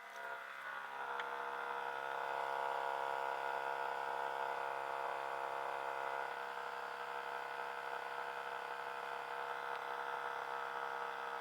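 Hitachi 25RPD/WPD inverter split air conditioner making a loud noise, a steady whining hum made of several held tones. It swells up over the first two seconds, then runs on steadily, dipping slightly about halfway through.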